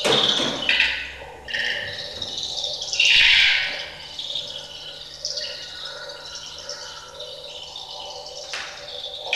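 Experimental live music: airy, hissing swells of noise in the high range, loudest about three seconds in, then quieter over a faint steady low hum, with a short sharp burst near the end.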